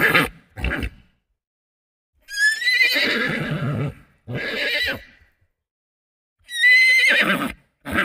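Horse whinnying: two long neighs that fall in pitch, each followed by a short, lower, breathy sound, with the tail of another neigh at the very start.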